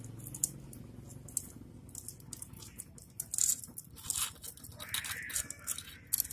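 Steel roller cam chain of a Honda Supra X engine clicking and rattling softly in scattered small clicks as it is handled and threaded over its sprockets.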